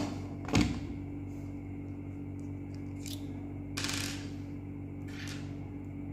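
Handling sounds of a tablet and stylus: a click, then a dull knock about half a second in as the tablet is set down on its plastic stand, followed by a light click and two brief scraping sounds as the stylus tip is tapped and slid across the touchscreen, over a low steady hum.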